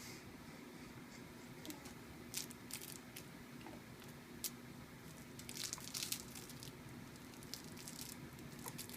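Faint crinkling and rustling from a baby moving on a play mat, with scattered soft crackles. The crackles come thickest for about a second just past the middle.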